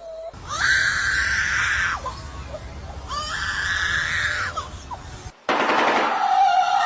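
Bird calling: two long, harsh, scream-like calls of about a second and a half each, sliding in pitch as they start and stop. About five seconds in, a different, noisier call begins.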